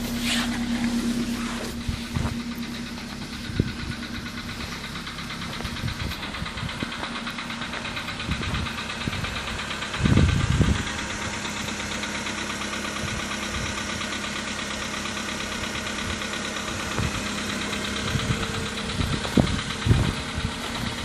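Skoda Rapid's 1.6 CFNA four-cylinder petrol engine idling with a metallic knock, the knock that shows up on this engine when cold at around 20,000 km. A few louder thumps come through, about ten seconds in and near the end.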